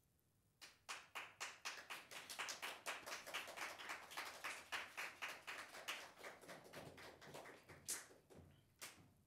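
A small group of people applauding, the individual claps quick and distinct. It starts about half a second in and thins out near the end.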